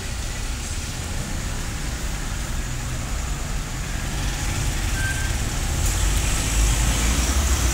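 Street traffic: car engines idling in a queue at a traffic light, then pulling away, the low rumble growing louder in the second half.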